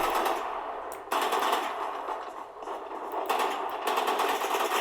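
First-person shooter game audio: automatic rifle fire in several rapid bursts, each a fast string of evenly spaced shots.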